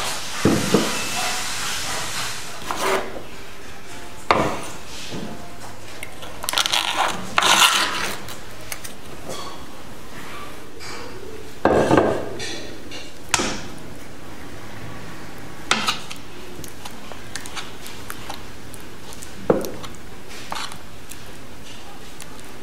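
Scattered knocks, clinks and scrapes of kitchen utensils: a knife on a wooden cutting board and a spoon against a ceramic bowl, with a busier run of them twice, over a steady faint hiss.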